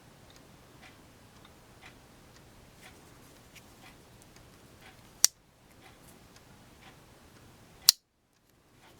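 Two sharp clicks about two and a half seconds apart, over faint light ticking: the small pen blade of a Queen sawcut bone Barlow pocket knife snapping on its back spring as it is worked through its half stop.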